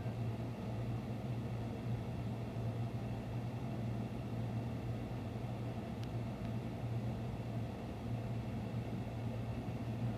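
Steady low hum with a faint even hiss, unchanging throughout, and one faint tick about six seconds in.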